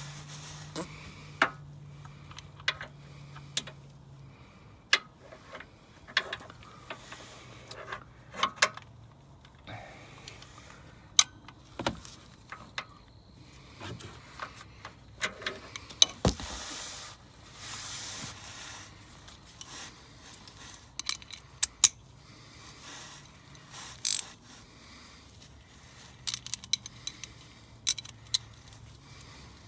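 Hand tools and metal parts clinking and clanking in scattered sharp knocks, some in quick clusters, over a faint steady low hum.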